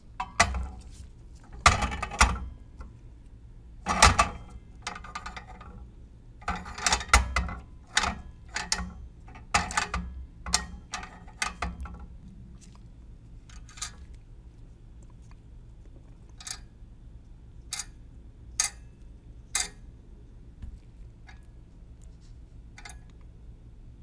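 Clicks and knocks from a triple beam balance as a small CPVC cylinder is set on its metal pan and the riders are slid along the beams. The clicks come in quick clusters at first, then thin out to single clicks about a second apart.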